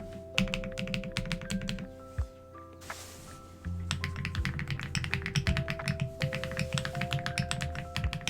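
Fast typing on a modded mechanical keyboard: a quick run of keystrokes, a pause of about two seconds, then steady typing again, over soft background music.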